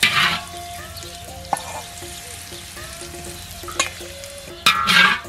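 Hot oil sizzling over chili flakes in a stainless steel bowl as a metal spoon stirs it, with a few sharp louder scrapes of the spoon, the loudest near the end.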